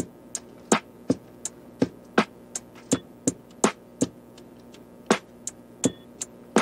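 Background music: a steady beat of short, sharp percussive hits, about three a second, over faint held tones.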